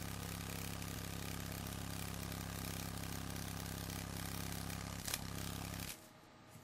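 Tethered rhinoceros beetle's wings beating in flight, a steady low buzzing drone. The flight is driven by electrical stimulation of its optic lobes. A sharp click comes about five seconds in, and the buzzing stops abruptly near the end.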